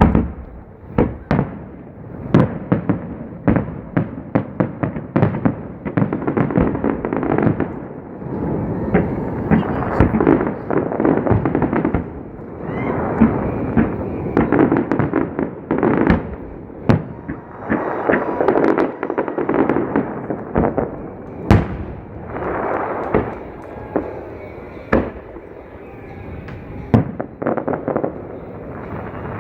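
Aerial fireworks going off: many sharp bangs, often in quick clusters, with long dense stretches of crackling between them. It starts with a loud bang.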